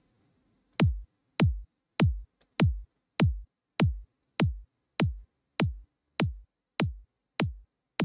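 Electronic kick drum sample from FL Studio's stock library looping on a steady beat, about a dozen hits roughly 0.6 s apart. Each hit is a sharp click that drops quickly in pitch into a short low thud. It plays soloed through a parametric EQ whose high-pass is being set around 300 Hz to cut the kick's low end for layering.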